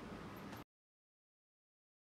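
Near silence: faint room tone that cuts off abruptly after about half a second into dead silence.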